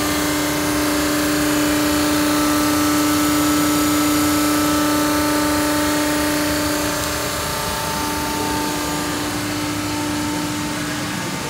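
Thermoforming machine running: a steady motor hum with a couple of steady tones over a broad hiss, easing slightly about seven seconds in.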